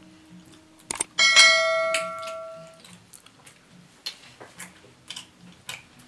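Notification-bell chime sound effect from a subscribe-button animation: a short click, then one bright ding about a second in that rings and fades out over about a second and a half.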